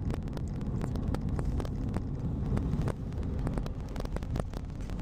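Steady low road rumble of a moving car heard inside the cabin, with frequent small clicks and knocks through it.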